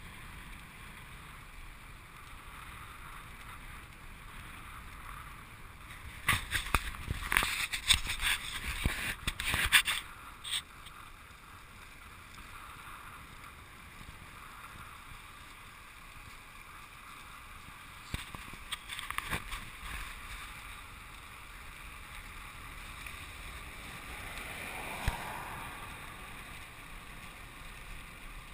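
Wind rushing over the microphone of a camera carried on a moving road bike, a steady noise with two stretches of loud, harsh crackling buffeting, one about a quarter of the way in and a shorter one past the middle.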